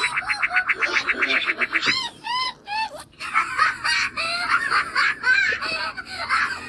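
High-pitched, sped-up cartoon character laughs: a rapid cackling run of about ten short bursts a second, then bouncy rising-and-falling "ha" syllables and more chattering giggles after a short break about three seconds in.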